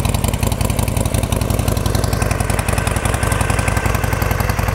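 2013 Harley-Davidson Sportster 1200 Custom's air-cooled 1200 cc V-twin idling steadily through its stock exhaust, with an even, repeating beat.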